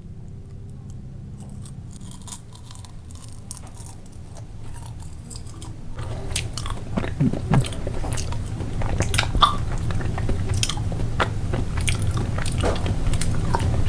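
A person chewing a chocolate-covered cicada close to the microphone, a crunchy crackling of chocolate and insect shell, faint at first and growing louder and denser about six seconds in.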